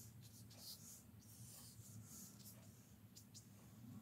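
Very faint, short brushing strokes of a water brush pen on paper, repeated irregularly over quiet room hum.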